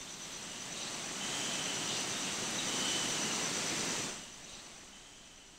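A rushing, roaring noise that swells over about three seconds, cuts off sharply about four seconds in, then fades away.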